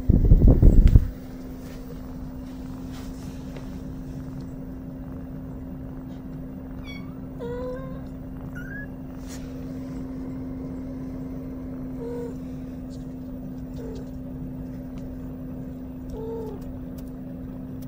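Cats mewing softly, about five short calls spaced a few seconds apart, starting a little after halfway. A loud, brief rumble of handling noise comes in the first second, and a steady low hum runs underneath.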